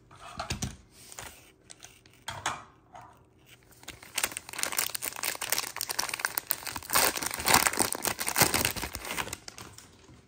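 Foil wrapper of a Donruss Optic football card pack crinkling and tearing as it is ripped open and the cards pulled out. A few brief rustles come first, then a dense run of crackling from about four seconds in until shortly before the end.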